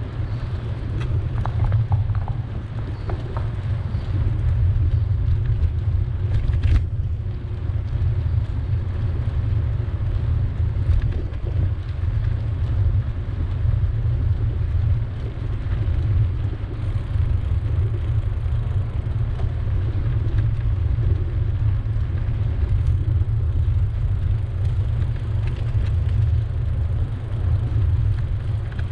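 Steady low rumble of a bicycle ride through city streets: wind and road noise on the moving microphone, with a brief click about seven seconds in.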